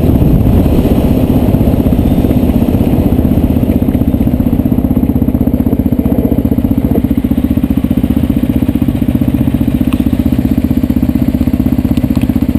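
Motorcycle engine running as the bike slows on gravel, then idling with an even, rapid pulse.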